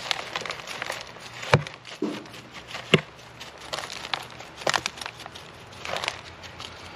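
Dry potting soil being knocked and crumbled off succulent roots by hand: scattered crackling and rustling with a few sharp knocks, the loudest about a second and a half in and about three seconds in.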